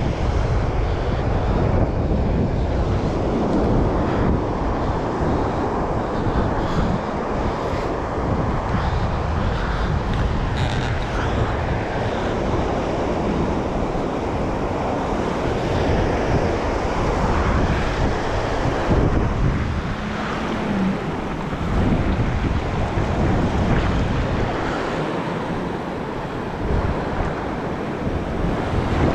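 Wind buffeting the microphone, with surf breaking on the beach underneath.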